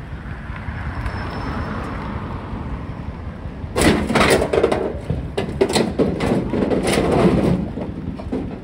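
Low traffic rumble at first; about four seconds in, a heavy decorated truck (dekotora) sets off much louder, an irregular rumbling and crackling of its diesel engine and tyres on gravel.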